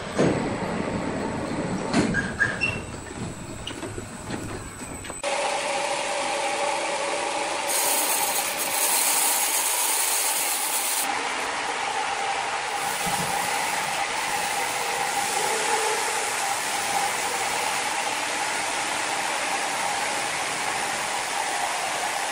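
Large horizontal band sawmill running with a steady machine hum and whine. A few knocks come in the first couple of seconds, and the sound changes abruptly to the steady run about five seconds in.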